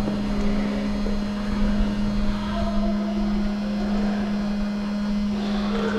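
Small anti-fog fan built into airsoft goggles, buzzing steadily close to the ear as a constant hum with no change in pitch.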